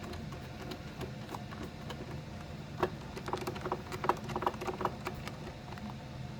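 Light clicks and taps of a Torx screwdriver and small metal parts being handled while a cable clamp screw is tightened, with a sharper knock about three seconds in followed by a run of quick clicks.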